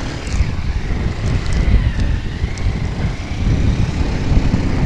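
Wind buffeting the microphone of a moving motorcycle: a deep gusty rumble with a faint steady whine above it.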